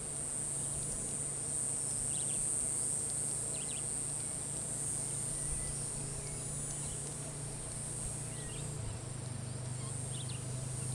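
Lakeside ambience: a steady high-pitched insect drone, a few short bird chirps scattered through, and a low steady hum underneath.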